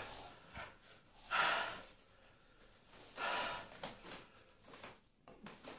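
A man breathing hard through his mouth, reacting to the burn of super-hot chillies: two strong, sharp breaths out about two seconds apart, with fainter breaths between.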